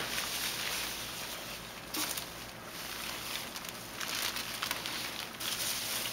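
Foam packing peanuts rustling and shifting as hands dig through them in a cardboard box, in uneven bursts.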